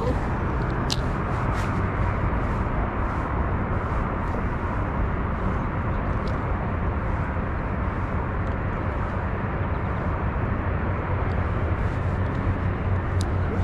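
Steady outdoor background rumble and hiss, with a few faint, sharp clicks scattered through it.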